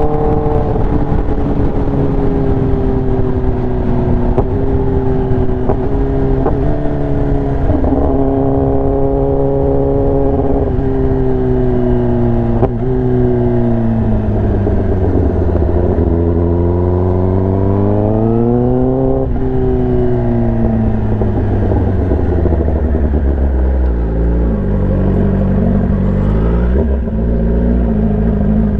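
Kawasaki ZX-10R inline-four with an SC-Project exhaust, running under way with the engine note sinking and climbing as the throttle changes, broken briefly a few times.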